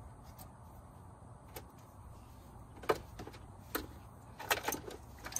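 Plastic wiring-harness connectors and cables clicking and knocking as they are handled and fitted in a car's dashboard. There is a sharp click about three seconds in and several more near the end, over a low steady hum.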